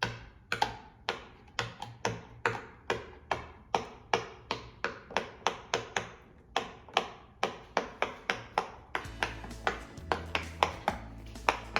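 French-fry-shaped pop-it fidget toy having its bubbles pressed one after another: a string of sharp, super loud pops about two a second, coming quicker and softer near the end.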